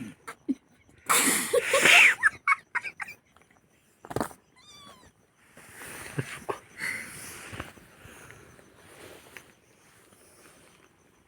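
Cat meowing: a loud drawn-out cry about a second in, then a short high mew a few seconds later, followed by quieter scuffling noises.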